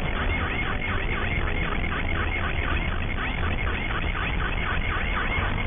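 Police car siren on a rapid yelp, its pitch swooping down and back up several times a second without a break, over the low rumble of a car at speed.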